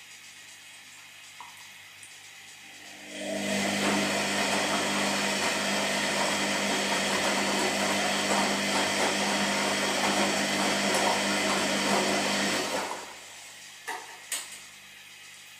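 Washing machine running a loud motor phase for about ten seconds: it starts about three seconds in and stops fairly suddenly near the end, a steady hum under a rough whirring noise. A couple of light clicks follow after it stops.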